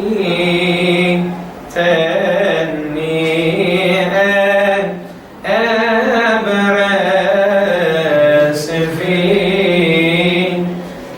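A male cantor chanting a Coptic hymn solo and unaccompanied. He sings three long phrases whose pitch winds up and down over the sustained vowels, with short breaths between them.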